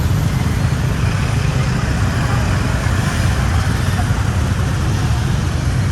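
Steady rumble of a moving road vehicle in traffic: a constant low drone of engine and road noise.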